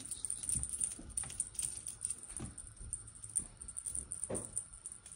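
Scattered light clicks and rustles as a kitten pounces and bats at a feather wand toy, her paws and claws scuffing on a rug while the toy rattles.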